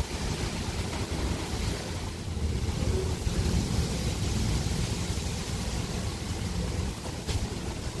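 Gusty wind as a summer thunderstorm approaches, buffeting the microphone with a steady low rumble over a soft hiss.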